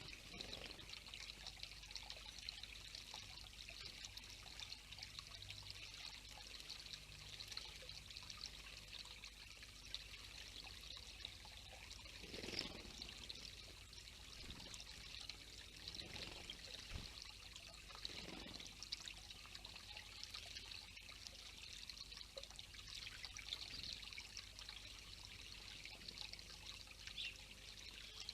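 Water trickling and pouring steadily, with a few brief splashes midway through from a house sparrow bathing in it.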